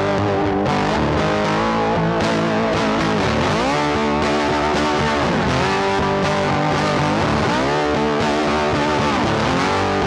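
Instrumental background music led by a distorted electric guitar, with held notes that bend down and back up in pitch every couple of seconds.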